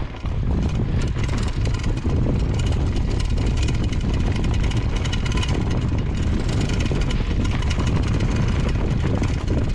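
Mountain bike descending a loose dirt trail: the tyres roll over the dirt and the bike clatters steadily over the bumps. Wind rumbles on the camera microphone throughout.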